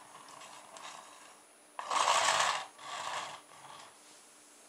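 Rubber-band-powered toy car with hot-glue-coated plastic wheels on a wooden floor: a faint rubbing as it is rolled backwards to wind the band, then, just under two seconds in, a loud rolling rush of the wheels as it is let go, followed by a second, quieter rush.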